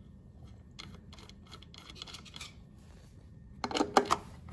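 Light metal scratching and small clicks as a captive screw fitted with an O-ring is threaded back by hand into the stainless-steel arm of a Garland grill, then a louder quick cluster of clicks about three and a half seconds in as a screwdriver is set into the screw head and turned.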